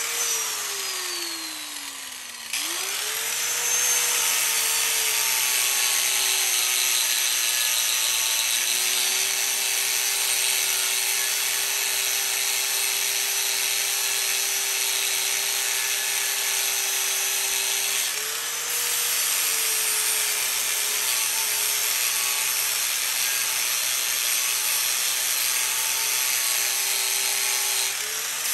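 Electric angle grinder with an abrasive disc dressing a TIG weld on a steel steering-column tube. The motor's whine falls as it spins down over the first couple of seconds, then picks up again and holds steady under load over the hiss of grinding. The pitch rises briefly about eighteen seconds in as the disc comes off the metal.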